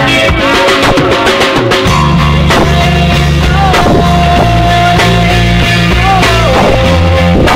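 Loud rock music with drums and heavy bass under a lead line that holds long notes, bending up and down in pitch.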